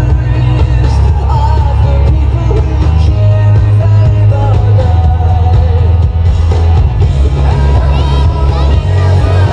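Loud pop-rock song with a singer and heavy bass.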